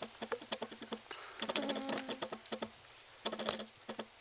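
A baby squirrel scrambling on a blanket: rapid small scratches and clicks of its claws on the fabric, with a short low hum about halfway through and a louder rustle near the end.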